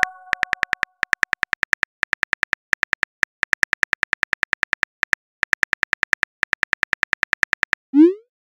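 Keyboard typing sound effect from a texting app: rapid even clicks, about eight a second, in three runs with short pauses. A chime fades out at the start, and a short rising pop sounds near the end as the message is sent.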